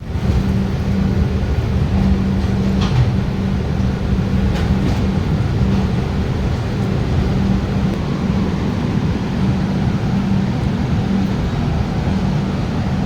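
Passenger train running: a steady low rumble with a constant hum, and a few faint clicks a few seconds in.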